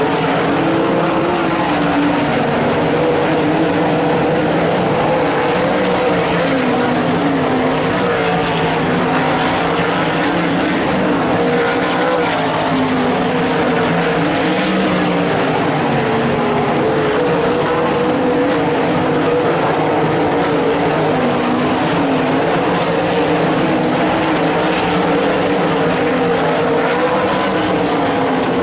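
A pack of limited sprintcars racing on a dirt oval, many engines at once, their pitches rising and falling in waves as the cars go through the turns.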